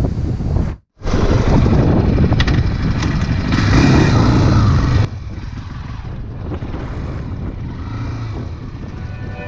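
Tornado 300 motorcycle riding, engine and wind noise on the microphone, in edited clips: the sound cuts out briefly about a second in, comes back louder, then drops abruptly to a quieter stretch about halfway through.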